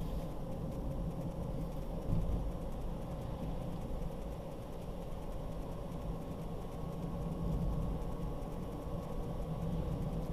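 Car driving along, a steady low rumble of engine and road noise heard from inside the cabin, with one short thump about two seconds in.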